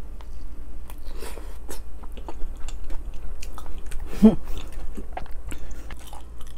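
Chewing and biting of grilled beef intestines (gopchang and daechang), a run of short wet clicks and crunches. A brief hum of the voice about four seconds in.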